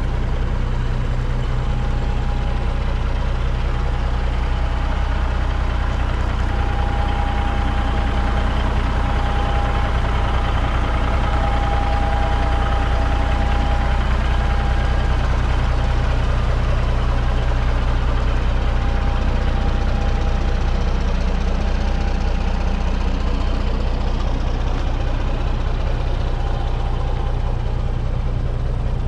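Peterbilt 359's Caterpillar B-model diesel engine running steadily: a low drone with a faint whine above it.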